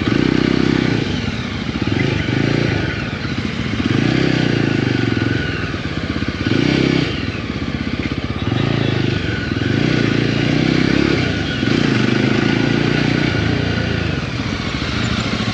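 Motorcycle engine running while being ridden slowly, its note swelling and dropping every second or two with the throttle.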